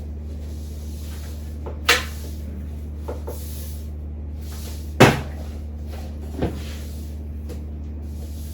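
A few separate sharp knocks and clacks of hard objects being handled and set down on a desk. The loudest comes about five seconds in, with a steady low hum underneath.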